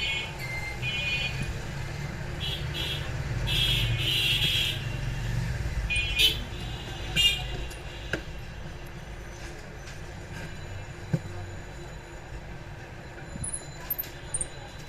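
Background traffic: a steady low rumble with repeated short horn toots over the first six seconds or so, then quieter, with a few sharp clicks scattered through the rest.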